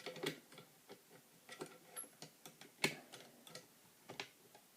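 Faint, irregular metallic clicks and ticks of picking tools being inserted and worked in a mortise lock's keyway, with one sharper click almost three seconds in.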